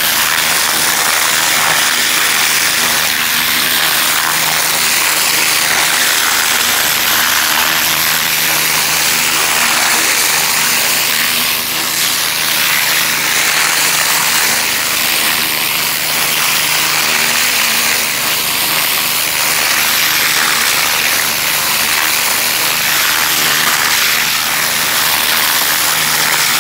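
Pressure washer running flat out at about 4200 PSI, its oscillating nozzle's jet blasting into soil and grass with a loud, steady hiss over the machine's constant hum.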